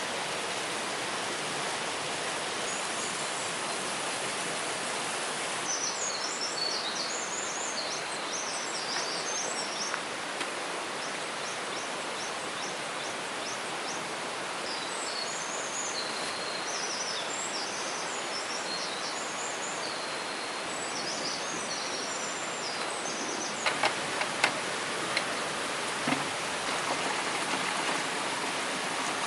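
Heavy rain falling as a steady hiss, with small birds chirping high above it through much of the stretch. A few sharp taps come near the end.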